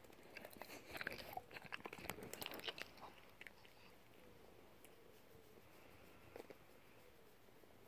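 Cats crunching dry treats picked out of a felt snuffle mat: a flurry of small crunches over the first three seconds, then one brief crunch about six seconds in.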